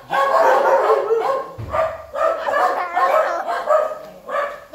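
Several shelter dogs barking at once in a kennel block, their barks overlapping so the barking runs almost without a break, easing briefly near the end.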